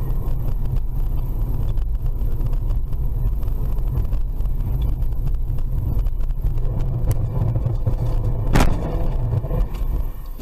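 Steady low rumble of a car driving, engine and road noise heard from inside the cabin through a dashcam, with one sharp knock about eight and a half seconds in.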